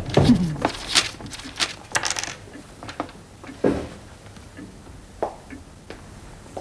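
Draughts pieces clicking and clattering together on a draughts board as a hand sweeps and moves them, followed by a few single knocks.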